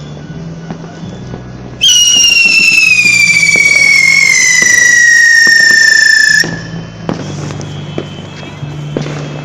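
Firework spinner wheel with a whistle: one loud, shrill whistle that starts abruptly about two seconds in, slowly falls in pitch for about four and a half seconds and cuts off suddenly, with scattered crackling pops before and after it.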